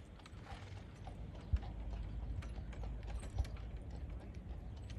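A horse's hooves clip-clopping on a paved street as it pulls a two-wheeled cart, in quick irregular clacks over a low, steady rumble.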